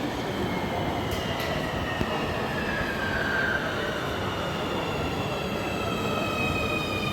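Nuremberg VAG DT3 subway train pulling in, with a rumble under a high whine that falls steadily in pitch as the train slows. Two faint clicks come about a second in.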